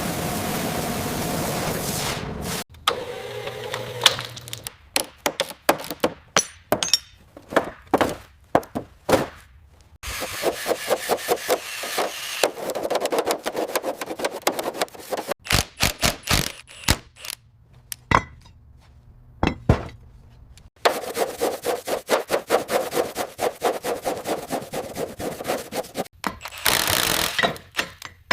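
Workshop tool work: a steady rasping noise for the first couple of seconds, then runs of separate clicks and knocks, and two long stretches of rapid, even back-and-forth strokes like scrubbing or sawing.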